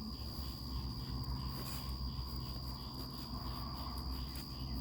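Steady high-pitched trill of insects, with faint scratching of hands sifting through potting soil in a grow bag.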